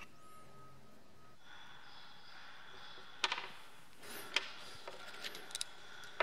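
Plastic being handled on a wooden table: a clear plastic filter case opened and a PVC tube set down, giving several sharp clicks and taps from about three seconds in, over a faint steady hum.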